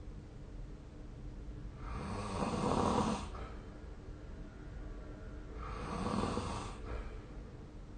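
A sleeping person snoring: two long, rasping snores about four seconds apart, with quieter breathing between them.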